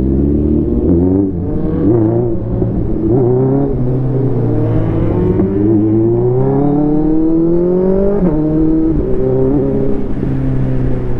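Inline-four superbike engine under way, its pitch climbing in a series of pulls with a drop at each gear change. The longest rise runs for about four seconds and ends in a sharp drop near eight seconds in.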